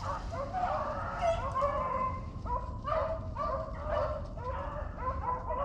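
A pack of beagles baying on the trail of a cottontail rabbit, many voices overlapping in a continuous chorus, over a steady low rumble.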